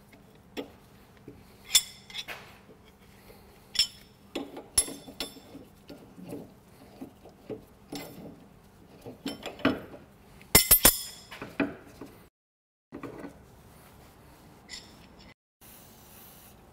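Metal hand tools clinking and knocking on steel suspension parts: scattered sharp clinks, with a quick run of louder ones about ten to eleven seconds in.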